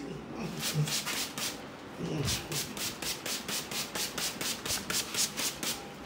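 Plastic trigger spray bottle squirting again and again in short hissing sprays, quickening to about four a second.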